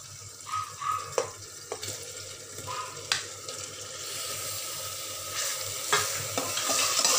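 Raw minced meat sizzling as it goes into hot oil and fried onions in an aluminium pressure cooker and is stirred with a ladle. A few spoon knocks come in the first three seconds, then the sizzle builds from about four seconds in and grows louder.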